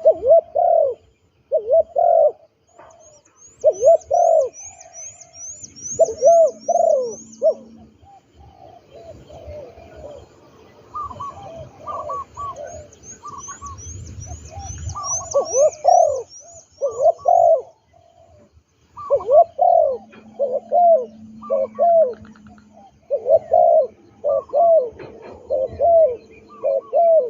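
Spotted dove cooing in short repeated phrases again and again. Twice a rapid series of high, thin chirps runs over the cooing.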